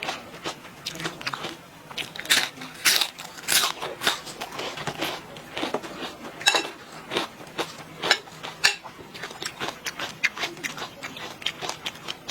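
Close-miked eating: a person biting and chewing crunchy food, with many irregular crisp crunches.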